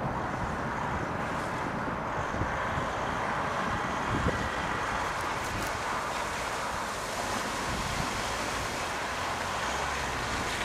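Steady wind rushing over the microphone, with a distant off-road 4x4 engine running underneath it as the vehicle crawls through mud.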